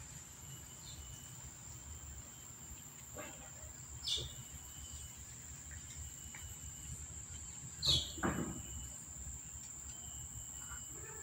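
Quiet outdoor ambience: a steady high-pitched whine and a low hum. Two short high chirps come about four seconds apart, the second louder and followed by a brief lower rustle.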